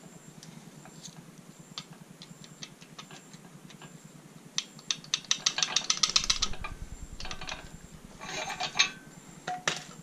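Hand tools and metal engine parts clicking and clinking on a bare engine block, with a quick run of rapid clicks about halfway through, another short burst near the end and one sharp clink just before it ends, over a steady low hum.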